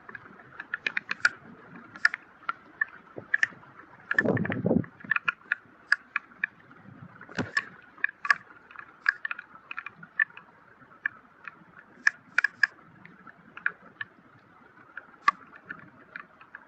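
Monsoon downpour and floodwater: a steady rush of water with many sharp, irregular ticks of drops and splashes striking close by. A short gust of wind on the microphone comes about four seconds in.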